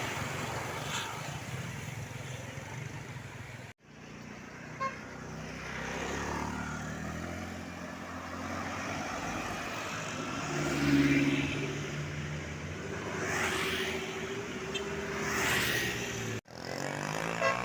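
Road traffic passing, with a tour bus's multi-tone 'telolet' basuri horn holding steady notes, loudest about eleven seconds in. The sound is broken by two brief gaps.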